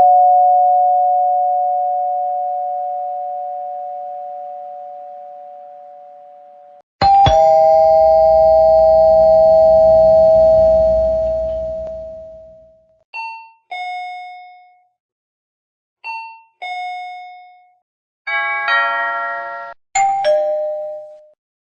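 A series of different doorbell chimes. A long two-note chime rings and slowly fades over about seven seconds. A second chime has a low hum under it and fades out. Then come two short high-to-low ding-dongs about three seconds apart, and near the end two brief chimes of several notes.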